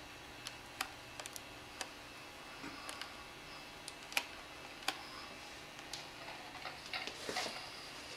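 Irregular plastic clicks and taps from a Sony DCR-TRV320 Digital8 camcorder being handled: its LCD panel is swung open and buttons are pressed. The two loudest clicks come about four and five seconds in, and a run of clicks with handling rustle comes near the end.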